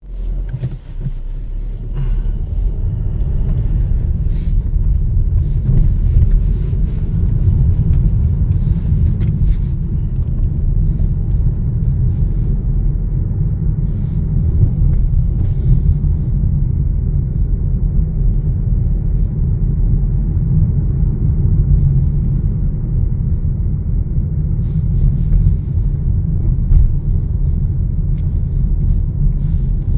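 Steady low rumble of a moving vehicle, heard from inside, with a few faint clicks now and then.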